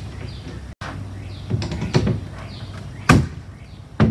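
A few separate dull knocks of wood and tools against the fascia board as it is worked into place, the loudest about three seconds in, over a steady low hum.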